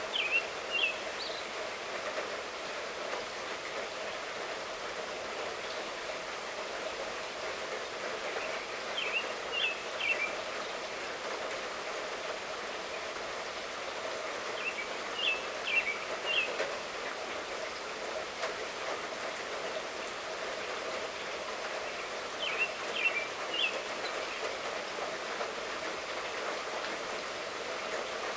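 Steady light rainfall. A bird calls a short phrase of three or four chirps about every six or seven seconds over it.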